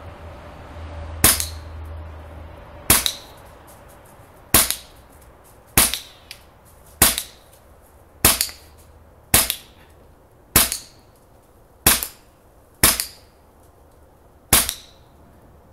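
FX Revolution .22 semi-automatic PCP air rifle firing eleven shots in quick succession, about one every second or so, each a sharp crack with a short tail.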